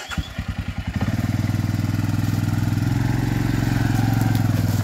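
ATV (four-wheeler) engine starting: a few spaced firing pulses for about the first second, then it catches and runs steadily.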